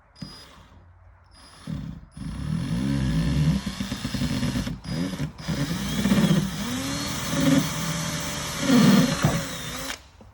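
Electric drill drilling holes through car body sheet metal: two short trigger blips, then about eight seconds of drilling with the motor pitch dipping and rising as the bit bites, stopping abruptly near the end.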